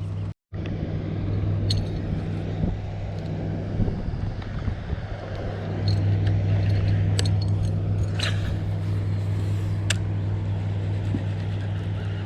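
Boat motor running steadily with a low, even hum, getting louder about halfway through, with a few light clicks over it.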